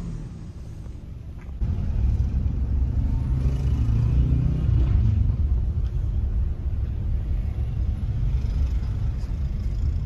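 Small Toyota car driving along a street: a steady low rumble of engine and road noise, which jumps louder about a second and a half in.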